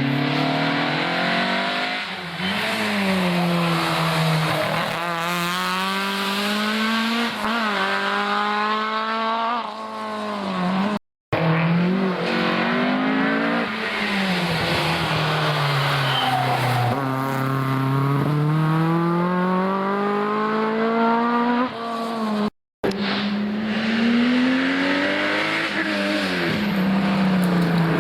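Historic rally cars' engines at full throttle on a special stage, revving high and dropping repeatedly through gear changes as they pass. The sound breaks off twice in short silent gaps, about 11 and 23 seconds in, between separate passes.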